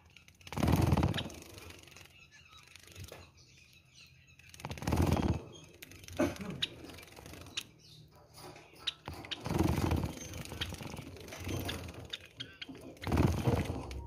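A Java sparrow bathing in a shallow tub of water, fluttering its wings to splash in four bursts of about a second each, a few seconds apart. A few short high chirps fall between the splashes.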